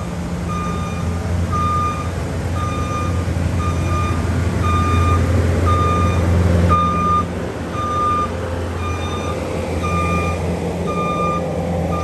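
A vehicle's reversing alarm beeping evenly, about one and a half beeps a second, over the steady low rumble of its running engine.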